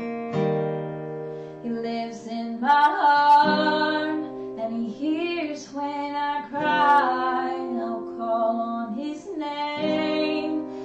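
A woman singing a slow gospel song with strummed acoustic guitar accompaniment. The guitar chord rings alone at first, and her voice comes in about two seconds in, holding long notes with vibrato.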